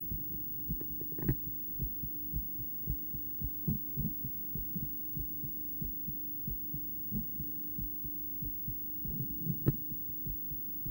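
A woman's heartbeat picked up by an ultrasound scan: regular soft thumps, about two a second, over a steady low hum.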